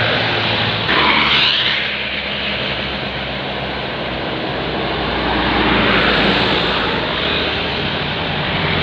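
Passing bus traffic: a diesel bus engine running as it goes by, with tyre and road noise. There is a brief louder burst about a second in and a swell near six seconds.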